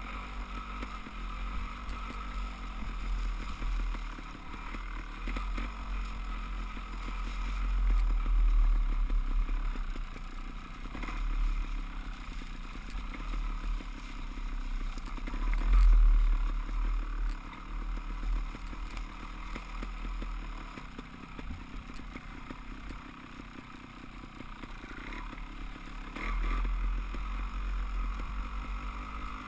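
Wind buffeting a helmet-mounted camera's microphone during a fast ride down a dirt trail, a low rumble that swells and fades, with the bike's rattle and a few knocks over the rough ground.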